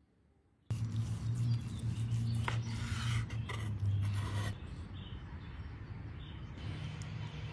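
A knife cutting through a cheese-topped steak pinwheel and scraping against the board, with a few sharp scrapes in the middle, over a steady low hum.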